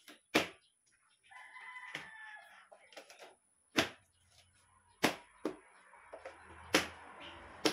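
Hard plastic shoe-rack shelves and metal poles knocking and clicking as the rack is fitted together by hand, about seven sharp knocks spread through. About a second in, a drawn-out pitched call sounds in the background for roughly a second, and a low hum comes in during the second half.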